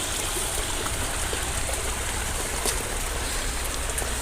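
Stream running: a steady rush of flowing water, with a low rumble underneath.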